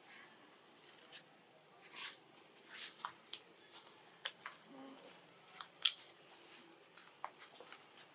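Scattered faint clicks and crackles, irregular, with one sharper click about six seconds in, from macaques shifting and grooming among the branches.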